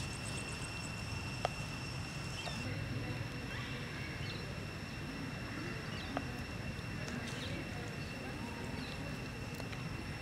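Outdoor ambience: a steady low rumble and a steady high whine, with faint short chirps and two sharp clicks, one about a second and a half in and one about six seconds in.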